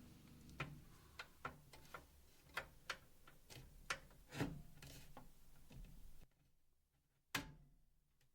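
Faint, irregular clicks and taps of computer hardware being handled, about a dozen over several seconds, with a low hum behind them that drops away near the end. The loudest click comes just after the hum stops.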